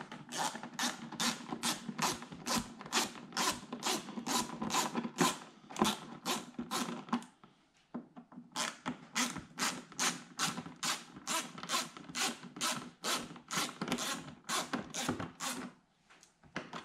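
Hand screwdriver backing out the screws that hold a front splitter winglet to the fender: a rasping stroke about three times a second as the driver is turned, in two runs with a short pause in the middle.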